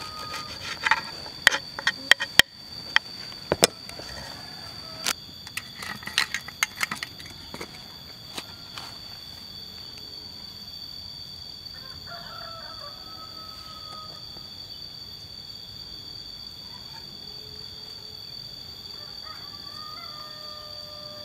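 A small knife taps sharply on a wooden cutting board as enoki mushrooms are sliced, with a run of clicks over the first seven or eight seconds. Later a rooster crows twice, faintly, about halfway through and again near the end. A steady high insect drone runs underneath.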